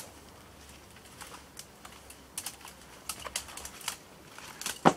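Scattered light crackles and snaps of twigs and leaves as someone pushes into a bush, with one louder knock near the end.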